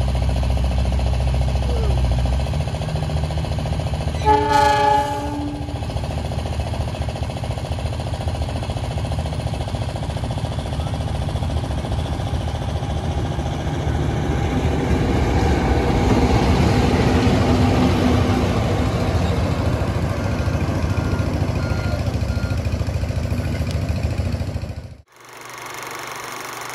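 A CC 206 diesel locomotive sounds one short horn blast about four seconds in. Its engine and wheels then grow louder as it approaches, the rumble peaking a little past halfway.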